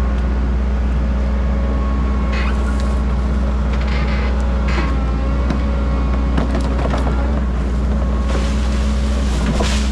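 Heavy-equipment diesel engine running steadily, with scattered cracks and crunches as a tree is worked over and its roots break.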